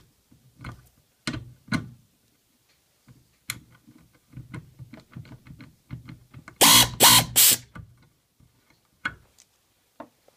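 Hanger bolt being driven into a tight pre-drilled hole in hardwood: scattered tool clicks and knocks, with a short, loud run of three pulses about two-thirds of the way through.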